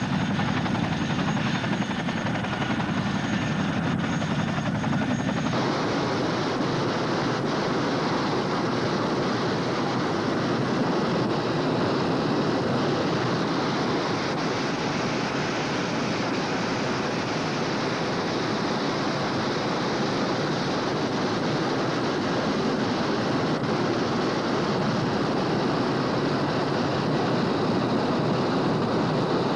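Chinook helicopter's engines and rotors running, a loud steady noise without pause.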